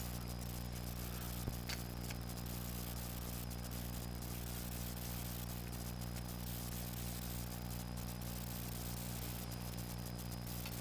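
A steady low mechanical hum, with a couple of faint light clicks of small metal parts being handled about one and a half seconds in.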